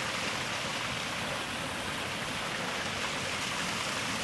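A small creek spilling over a rock ledge into a pool: a steady rush of running water.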